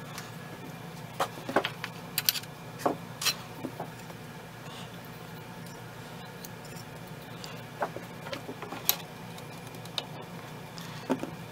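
Scattered sharp metallic clicks and knocks of K98k Mauser rifle parts being handled and fitted together during reassembly, in two clusters with a lull between, over a steady low hum.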